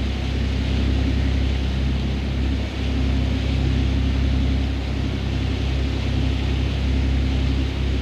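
Fishing boat's engine running steadily while trolling: a constant low drone with an even hiss over it.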